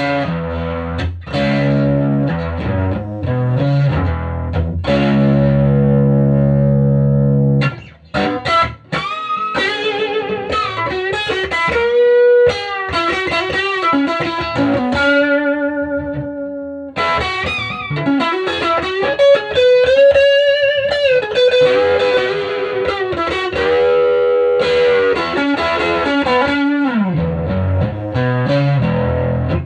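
Electric guitar played through a 1965 WEM Control ER15 valve amplifier head with push-pull EL84 output valves, treble at max and bass nearly max. Strummed chords ring for about the first eight seconds, then give way to single-note lines with bent and wavering notes, with chords returning near the end.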